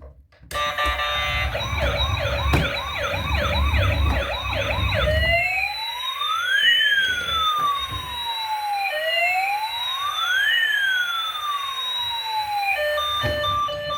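Toy emergency vehicle's electronic siren sound effect from its small speaker: a fast warble with a low rumble under it for about four seconds, then a slow wail that rises and falls twice. Near the end it switches to a beeping electronic tune.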